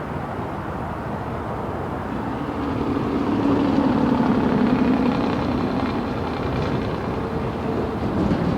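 GO Transit diesel commuter train running past, a steady rumble that swells a few seconds in with a low engine drone, then eases slightly.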